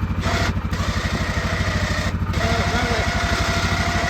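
Yamaha Kodiak 450 ATV's single-cylinder engine idling steadily. About halfway through, the electric winch starts pulling in its cable and adds a steady whine.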